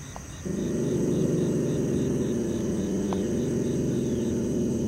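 A dog growling low and steadily under the container for about five seconds, starting about half a second in: the warning growl of a frightened dog. Crickets chirp faintly behind it.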